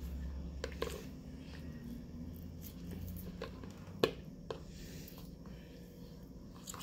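Quiet eating sounds: soft chewing with a few sharp clicks of a metal spoon against a plastic food container, the loudest about four seconds in.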